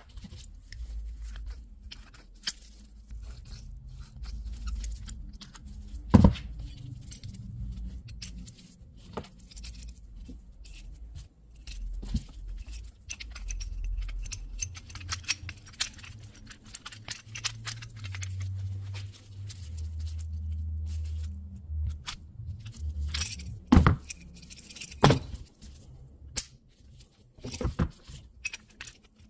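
Metallic clinking and clacking of .50 BMG cartridges and steel M9 links being handled and worked through an M12 hand linker/delinker: scattered sharp clicks with a few louder clacks, over low handling rumble.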